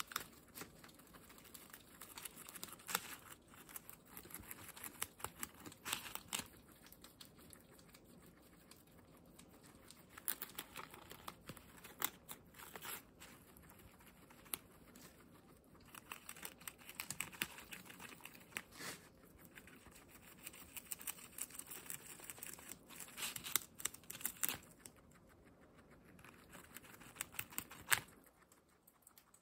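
A guinea pig tearing and chewing fresh leaves: irregular crunching bites mixed with the rustle and crinkle of the broad leaves as it pulls at them.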